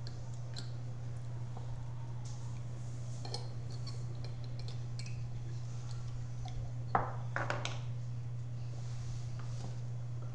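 A metal spoon clinking and scraping in a small glass baby-food jar, a few light clicks with the sharpest pair about seven seconds in, over a steady low hum.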